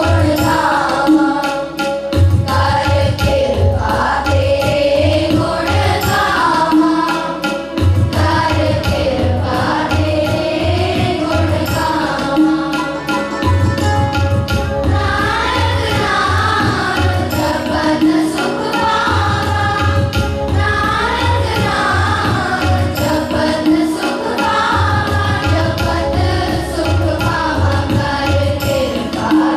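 A group of children singing a Sikh Shabad, a devotional hymn, with tabla accompaniment keeping a steady beat.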